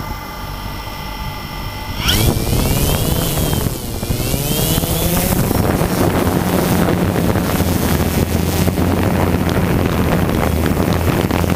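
Small drone's electric motors and propellers: a steady whine at idle, then about two seconds in the motors throttle up for takeoff, their whine rising and dipping, and settle into a steady whir with rushing propeller wash as it flies.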